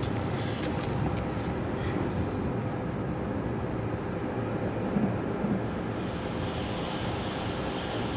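Passenger train running, a steady rumble heard from inside the carriage.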